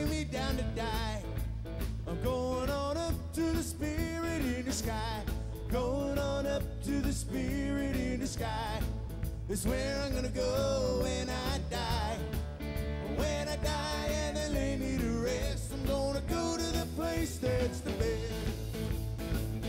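Live country band playing: drum kit, acoustic guitar and bass under a wavering lead melody line, at a steady level throughout.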